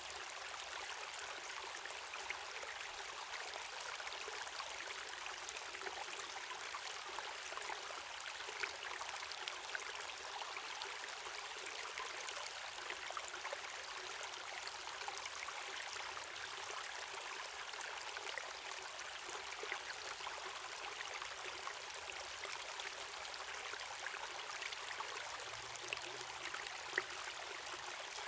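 Running water of a waterfall and stream: a steady, even rush with a few brief louder splashes.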